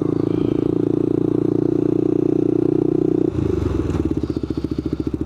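Sport quad (ATV) engine running steadily at moderate revs, then dropping suddenly to a slow, pulsing idle about three seconds in.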